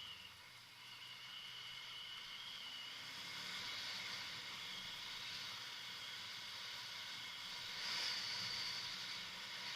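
Kawasaki Versys motorcycle running on a dirt track: a steady hiss over a faint low engine hum, a little louder about eight seconds in.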